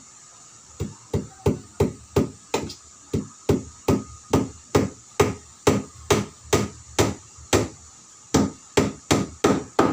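Claw hammer striking the edge of a homemade stepper's green-painted wooden top, firming up a loose board. The blows are sharp and evenly paced, about two or three a second, with a brief pause near the end before a few more.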